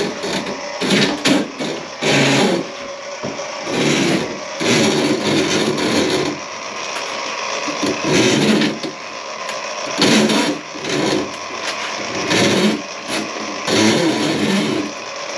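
Drain snake (drain auger) cable being worked through a clogged kitchen sink drain: repeated bursts of rattling and scraping every second or two.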